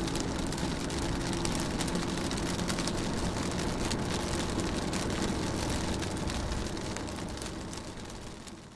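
Rain falling on a car window: many small drop impacts over a steady hiss, with a low steady hum underneath. It fades out over the last two seconds or so.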